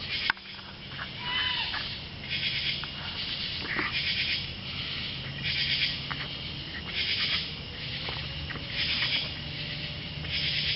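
An unidentified animal gives a short arched cry about a second and a half in, over a chorus of night insects pulsing roughly once a second. A faint, slowly rising tone comes in during the second half.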